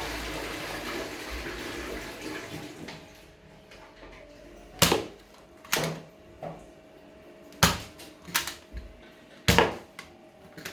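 A rushing hiss for the first two seconds or so, then five sharp snaps at uneven spacing from a toy blaster pistol firing.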